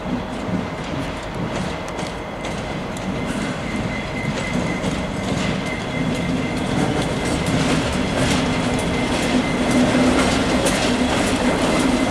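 A GBRf Class 59 diesel-electric locomotive, with an EMD two-stroke V16 engine, arrives slowly through the platform. Its engine hum grows steadily louder as it nears, and the wheels click over the rail joints.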